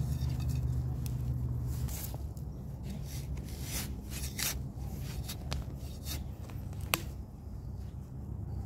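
Hands scraping and crumbling damp soil and leaf litter while digging out a termite mushroom, making scattered rustles and scrapes with one sharp click about seven seconds in. A steady low hum sits underneath for the first two seconds.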